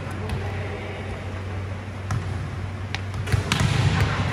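Volleyballs being hit by players during passing practice: scattered sharp slaps, with a cluster of louder ones about three and a half seconds in, over a steady low hum.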